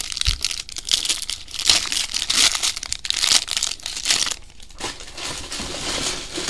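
Trading card pack wrapper being torn open and crinkled in the hands: a run of irregular crackling rustles that eases off after about four and a half seconds.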